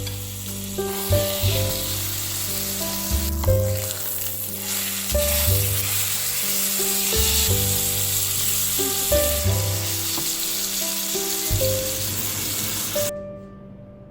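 Food sizzling as it fries in a hot pan, a steady hiss that cuts off suddenly about a second before the end.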